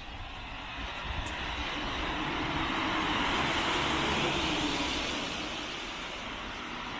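A vehicle passing by: a rushing, engine-and-road noise that swells to its loudest about midway and then eases off.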